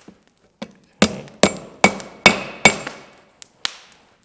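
Hand hammer striking a glowing steel bar on an anvil to straighten it: a light tap, then five quick ringing blows, about two and a half a second, then two lighter taps near the end.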